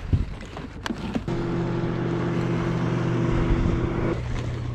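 A few knocks of fishing gear being handled, then a boat motor starts humming about a second in and runs steadily at an even pitch.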